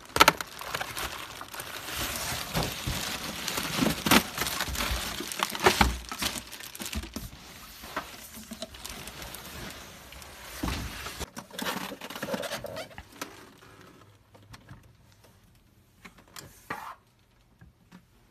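Plastic bag wrapping and cardboard packing rustling and crinkling as they are handled and pulled off, busy with many sharp crackles. After about eleven seconds it drops to a few light knocks and shuffles.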